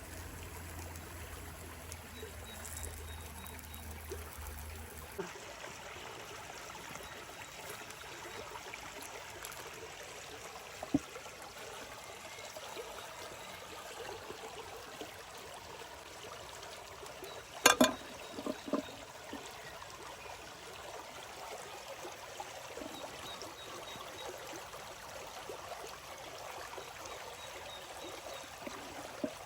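River water flowing steadily. A few sharp clicks or knocks cut through it, the loudest about eighteen seconds in.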